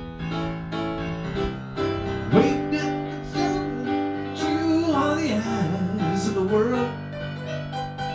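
A live band plays an instrumental passage: a Roland RS-9 keyboard plays piano-toned chords and runs over drums. A lead line bends and wavers in pitch from about four to seven seconds in.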